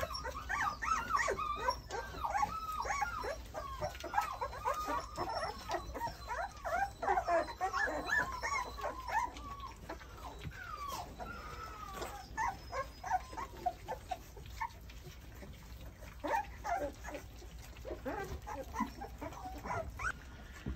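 A litter of North American Mastiff puppies whimpering and yipping over a feeding trough at mealtime, many short high whines overlapping, busiest in the first half and thinning out after about ten seconds.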